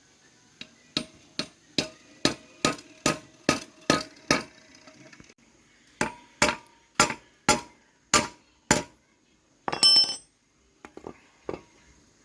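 Hammer blows on metal, about two and a half a second: a run of about nine strikes, a pause, then about six more. A short scraping clatter with a high ring follows, then a few light taps.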